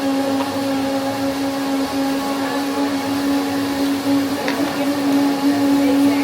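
Electric blender running steadily with a constant motor hum.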